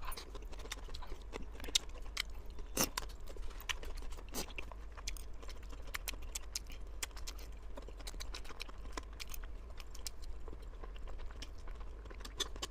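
Close-miked mukbang eating: a person chewing and biting food, with many small irregular mouth clicks and smacks.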